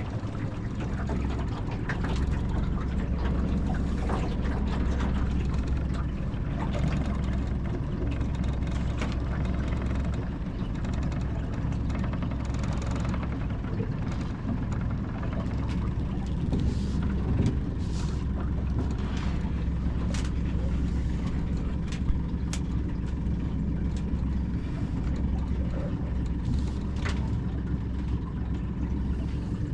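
A 25 hp Mercury four-stroke outboard motor running steadily, with a few short sharp knocks over the engine note, the sharpest a little past the middle.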